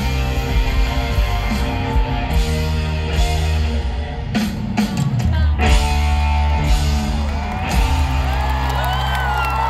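Live rock band playing a song's outro, heard from within a stadium crowd: electric guitars over held bass notes, with a run of drum hits about halfway through. In the last two seconds or so the crowd starts whooping and cheering as the song winds down.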